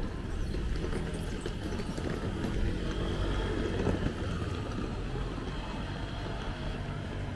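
Street ambience heard while walking: a steady low rumble with light footsteps and scattered small clicks, and a faint high tone about three to six seconds in.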